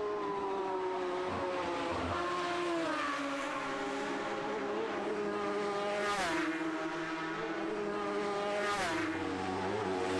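Racing motorcycle engines at high revs, their note sliding downward. About six and nine seconds in a bike passes close with a sudden drop in pitch, and another comes up loud right at the end.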